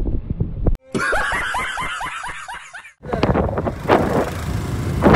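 About two seconds of rapid repeated laughter, an edited-in laugh sound effect that starts and stops on hard cuts. Before and after it comes the rush of wind buffeting the microphone on a moving motorbike.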